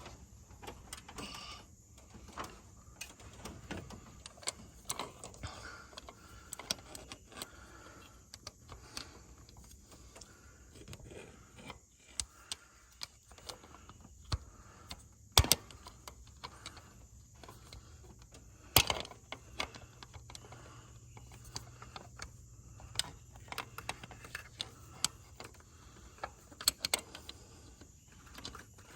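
Scattered metallic clicks and clinks of hand tools and engine valvetrain parts being handled, with two sharper clicks about fifteen and nineteen seconds in.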